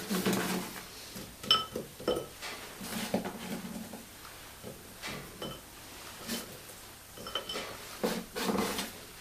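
Crisp no-bake oat and Nutella clusters being picked up by hand and dropped into a ceramic bowl: irregular light knocks and clinks against the bowl, with one sharper clink about a second and a half in.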